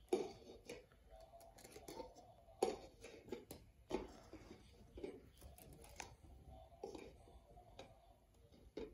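Red plastic cups being pulled one at a time off a nested stack and set down upside down on a hardwood floor: light plastic clicks and taps, about one a second.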